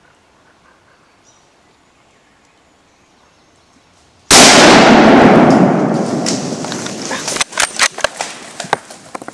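A single gunshot close to the microphone about four seconds in, very loud and sudden, fading out over a couple of seconds. A few sharp clicks and knocks follow.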